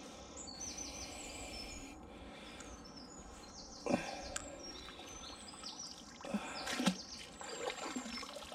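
Small birds singing in quick, repeated high trills over outdoor background noise, with a sharp knock about four seconds in and another, louder one near seven seconds.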